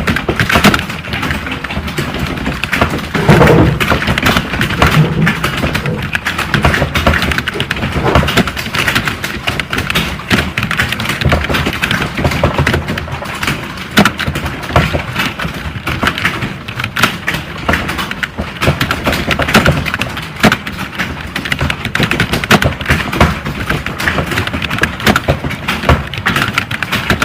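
Fast, continuous typing on a keyboard: a dense run of rapid keystroke clicks with no real pauses.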